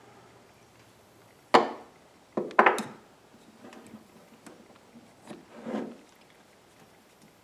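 Sharp knocks and clatter as wooden carving parts and small tools are handled and set down: a loud knock about a second and a half in, a quick double knock a second later, and softer knocks near the six-second mark.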